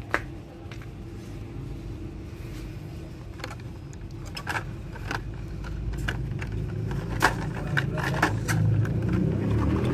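Plastic blister packs of die-cast toy cars clicking and clacking against each other and their display pegs as they are flipped through, the clicks coming thicker in the second half. A low rumble under them grows louder toward the end.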